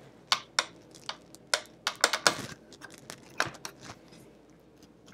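Irregular sharp clicks and taps of a vintage 1970s Kenmore sewing machine's hard plastic housing and parts being pried and handled, about a dozen, mostly in the first three and a half seconds.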